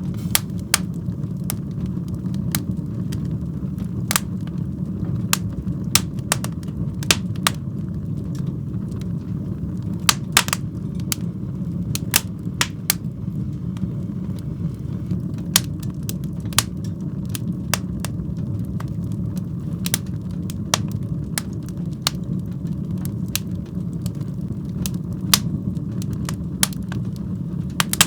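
Fire burning in a fireplace: a steady low rumble of flames with irregular sharp crackles and pops, a couple every second.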